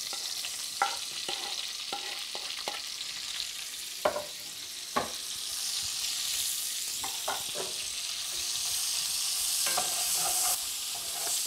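Chopped onions frying in a hot cast iron pan, with a steady sizzle that swells a little about halfway through. There are a few sharp clicks and knocks as they are tipped in and stirred.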